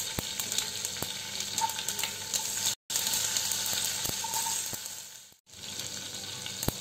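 A tadka of cumin, ajwain and mustard seeds, dry red chilli, bay leaf and hing sizzling in hot butter and oil in a kadhai, with many small crackling pops, while a ladle stirs it. The sound cuts out briefly just under three seconds in, and again about five and a half seconds in.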